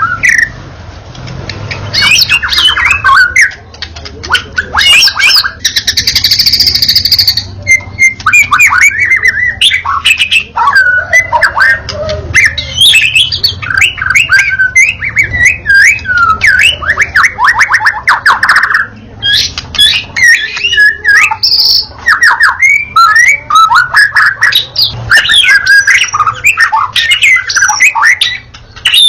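Wild white-rumped shama singing hard, a continuous and varied stream of rapid whistles, fast trills and sweeping notes with a brief buzzy, harsh phrase about six seconds in.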